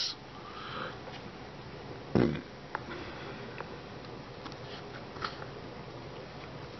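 Quiet room hiss with a few faint light clicks from a paintbrush and miniature being handled, and one short breath sound about two seconds in.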